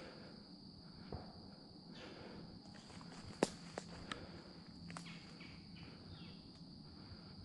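Footsteps through forest leaf litter and undergrowth, with a few sharp snaps, the loudest about three and a half seconds in, over a steady high-pitched insect chorus.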